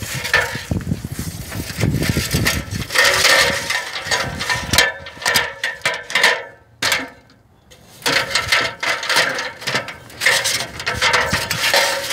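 Someone climbing a metal ladder: irregular clanks, knocks and rattles from the ladder and feet on the rungs, with a brief lull about seven seconds in.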